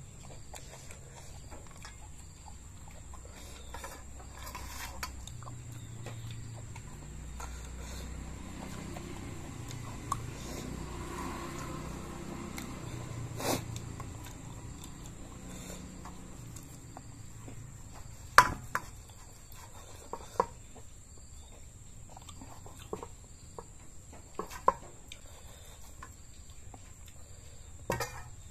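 A person chewing and eating raw beef close to the microphone: wet mouth sounds with several sharp, separate clicks and smacks, the loudest about two-thirds of the way through.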